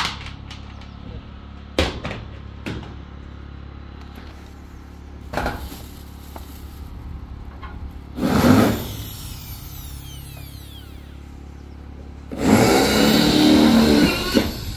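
An electric power tool runs in short bursts: one of just under a second about eight seconds in, then a longer run of about two seconds near the end. Scattered knocks come before them.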